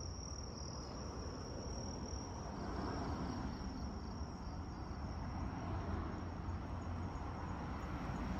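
Insects trilling: one steady, unbroken high-pitched note, over a low rumble.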